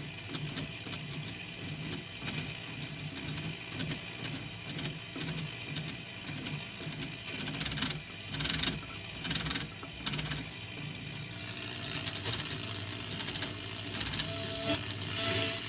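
Collins R-390 shortwave receiver being tuned by hand: rapid mechanical clicking and rattling from its tuning gear train and slug racks as the frequency counter winds down, over steady receiver noise and hum. The clicking comes in louder clusters about halfway through and again near the end.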